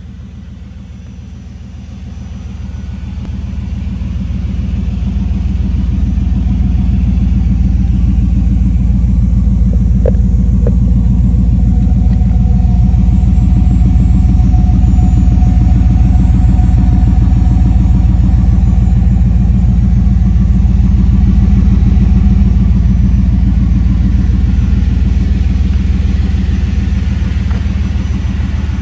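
1995 Pontiac Firebird Formula Firehawk's 5.7-litre LT1 V8 idling with a deep, steady rumble. It grows louder over the first several seconds, holds, and eases slightly near the end.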